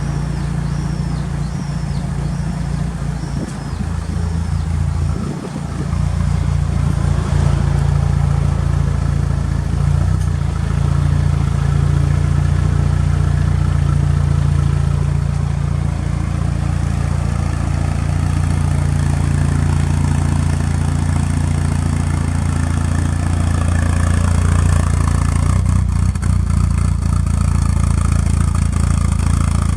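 Mitsubishi Lancer Evolution VI's turbocharged 4G63 inline-four idling steadily through an aftermarket muffler, with a deep, even hum that dips briefly about five seconds in and then comes back louder.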